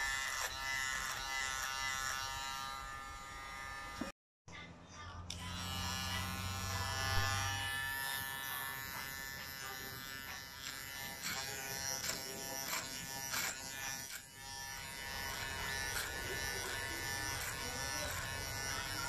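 KM-719 electric hair clipper running with a steady buzzing whine as it cuts hair. The sound drops out for a moment about four seconds in.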